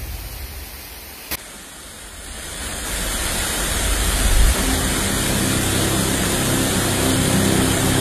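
Waterfall rushing steadily as several streams pour over a rock face into a pool. The rushing swells in from about two seconds in, after a single short click.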